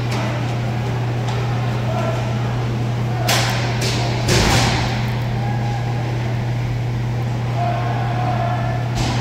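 Roller hockey play in an arena: sticks and puck knocking on the sport-court floor and boards, with two sharp knocks about three and four seconds in, the second louder. A steady low hum from the building runs underneath, with faint distant voices of players.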